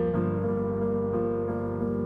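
Yamaha piano playing a solo intro of held chords over low bass notes, with a new chord and bass note struck just after the start.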